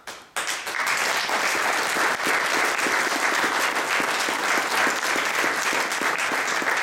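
Audience applauding. A few claps come right at the start, and about half a second in the applause fills out, then holds steady.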